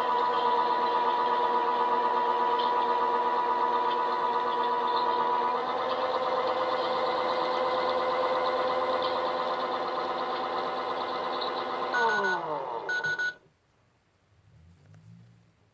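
Toy washing machine's small electric motor spinning the drum with a steady whine. About twelve seconds in it gives two short beeps as the motor winds down, falling in pitch, then it stops abruptly.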